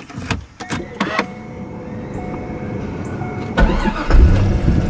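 A stock C5 Corvette's LS1 V8 is started: a few clicks first, then the starter cranks about three and a half seconds in and the engine catches, flares and settles into a steady run.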